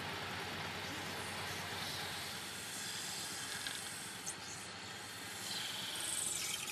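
A lathe spinning a section of bamboo while a hand-held cutting tool shaves it, a steady hiss of cutting. The high hiss grows a little stronger near the end.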